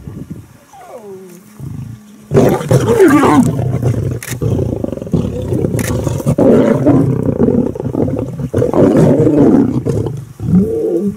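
A pride of lions growling in a scuffle over a kill. The growling breaks out suddenly about two seconds in and then goes on in loud, overlapping bouts from several animals.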